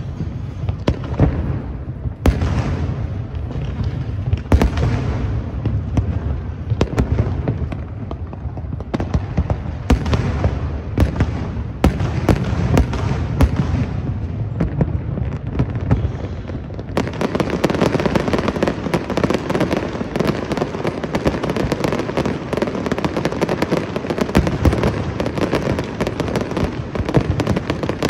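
Aerial fireworks bursting in a rapid series of bangs and booms; about two-thirds of the way through they give way to a dense, continuous crackling.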